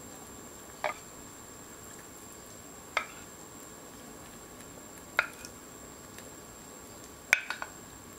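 Wooden spoon knocking on the saucepan and plate while silken tofu is spooned into kimchi broth: four short knocks about two seconds apart, the last followed quickly by two lighter ones, over a faint steady hiss.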